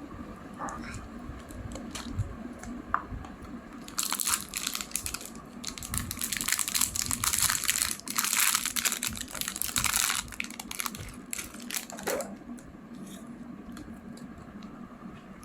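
Plastic packaging crinkling and rustling as it is handled and torn open, dense from about four seconds in until about twelve seconds, with a few light clicks and rustles before and after.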